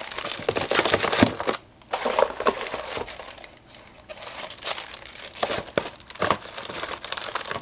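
False-eyelash packaging crinkling and rustling in irregular bursts as the packs are handled and squeezed into an overfull storage bin.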